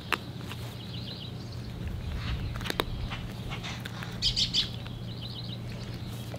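Small birds chirping: two quick trills of short high notes and a louder group of three chirps a little past four seconds, over a steady low hum, with a couple of sharp clicks.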